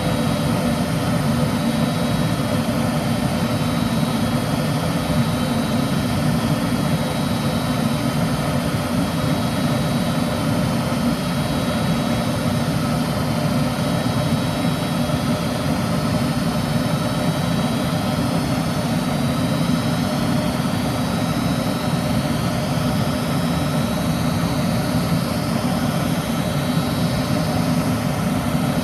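Goodman natural gas furnace running: a steady, unbroken rushing of the burners and blower, with no cutting out.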